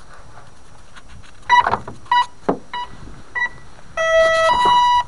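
Startup beeps of a Turnigy Dlux 55A electronic speed controller, sounded through the windings of a Turnigy G-25 brushless motor as the battery is connected. Four short beeps come about two-thirds of a second apart, then a longer low tone steps up to a higher one: the 'boo beep' that shows the ESC has initialised and everything is working.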